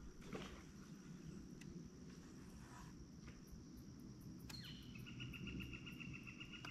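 Quiet background with a faint steady high whine. About four and a half seconds in, an insect starts a buzzing trill, rapidly pulsed and held at one pitch.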